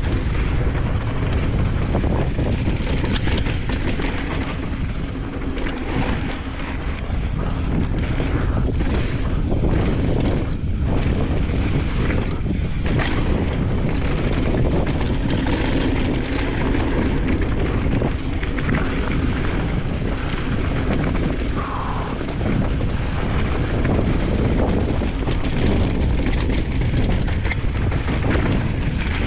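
Wind buffeting an action camera and a mountain bike rolling fast over a dirt flow trail, a steady low rush. Short rattles and knocks come from the bike over bumps and jumps, most of them in the first half.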